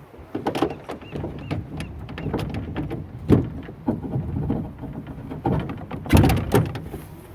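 Irregular knocks and clunks of oars and gear in a small rowboat as rowing gets under way, with the loudest knocks about three seconds in and again about six seconds in.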